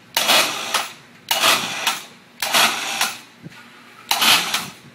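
Shop hoist raising the rear end of a John Deere riding mower by a hook: four short bursts of mechanical noise about a second apart, each lasting under a second.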